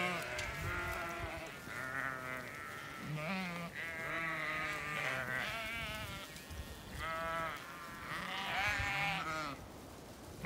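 Zwartbles ewes and lambs bleating, many quavering calls overlapping one after another, as the flock is turned out into a fresh field.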